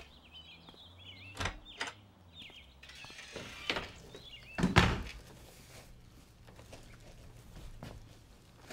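A house's storm door and front door being opened and shut: a couple of latch clicks about a second and a half in, another click near four seconds, then the door closing with a heavy thunk about five seconds in, the loudest sound.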